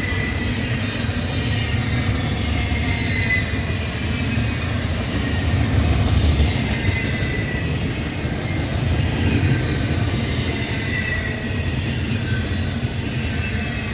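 Double-stack container freight train rolling past: a steady low rumble of wheels on rail, with faint high wheel squeal coming and going.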